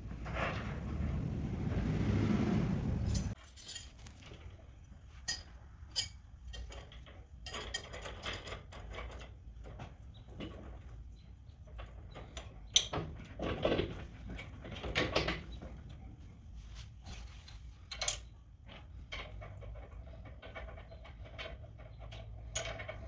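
Metal parts and tools clinking and knocking as a four-post car lift is assembled, after a steady rushing noise that lasts about three seconds and stops suddenly.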